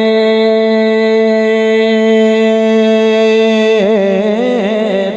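A man singing Punjabi devotional verse, holding one long steady note for nearly four seconds, then bending it into quick wavering turns near the end.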